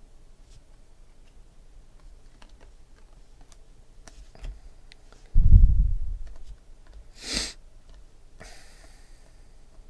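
Glossy trading cards handled and flipped through by hand: faint scattered clicks and slides of card on card. A heavy low thump comes about five and a half seconds in and dies away over about a second, followed by a short sharp hiss.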